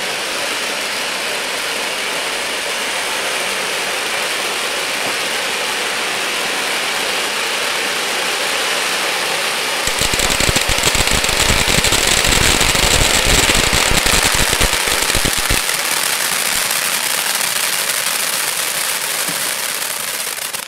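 Cone fountain fireworks spraying sparks with a loud, steady hiss. About ten seconds in, dense crackling starts and runs for about five seconds over the hiss, from the fountains' crackling effect.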